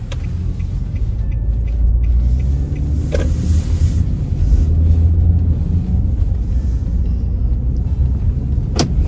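Road noise heard from inside a moving car's cabin: a steady low rumble from the tyres and engine, swelling a little midway. One sharp click comes near the end.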